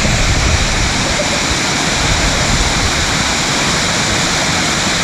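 Small waterfall rushing steadily, a loud, even roar of falling water.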